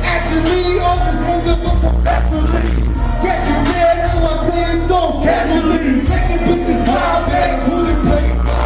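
Live hip hop through a club PA: rappers rapping into microphones over a loud, bass-heavy beat.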